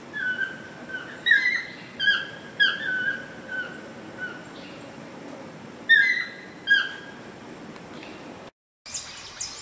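Chestnut-mandibled toucan calling: loud, short notes, each dropping in pitch, repeated in irregular bunches of two or three with pauses between. Near the end, after a brief dropout, higher-pitched chirps follow.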